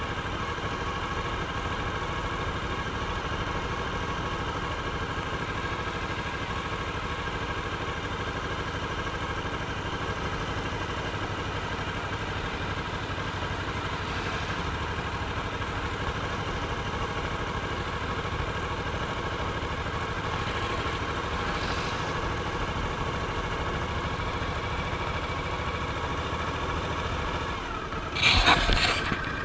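Suzuki DL1000 V-Strom's V-twin engine running steadily as the motorcycle rides along. A car passes the other way about halfway through. Near the end, loud crackling bursts cover the engine.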